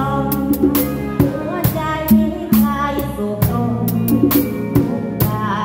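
An Isan-style band rehearsing: a drum kit keeps a steady beat with regular cymbal and drum hits, over a bass line and a wavering melody line.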